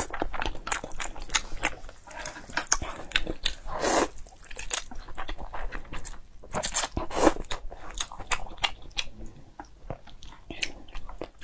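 Close-miked eating sounds: chewing and biting with many small crisp clicks, and noodles slurped from a bowl a couple of times.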